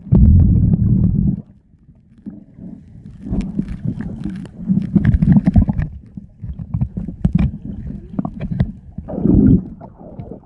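Muffled underwater noise picked up by a camera held below the surface: low rumbling of moving water with irregular knocks and clicks from handling. It is loudest in the first second and a half.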